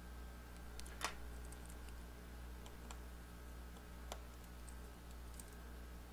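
Faint, scattered small clicks and ticks of steel tweezers and a precision screwdriver handling tiny screws and a metal bracket on an iPhone 6, the sharpest click about a second in and another about four seconds in, over a steady low hum.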